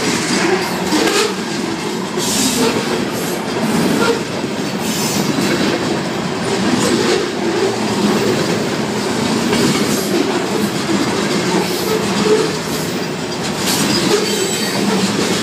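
Freight train of covered grain hopper cars rolling past close by: a steady, loud rumble of wheels on rail with irregular clacks as the wheels cross rail joints. The crossing's mechanical bells keep ringing under it.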